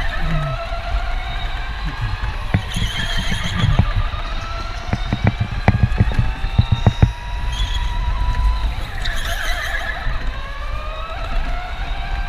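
Electric go-kart motor whining, its pitch climbing steadily as the kart speeds up, dropping about nine to ten seconds in as it slows for a corner, then climbing again. Low rumble from the kart and track runs underneath, with a run of sharp knocks around five to seven seconds in.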